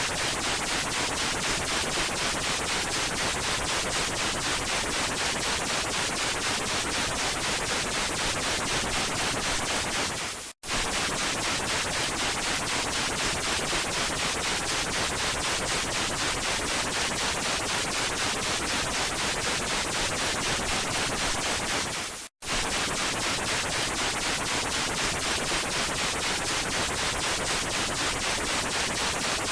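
Loud harsh broadcast static with a rapid, even flutter, standing in for a glitching emergency transmission. It cuts out for an instant twice, about a third and three quarters of the way through.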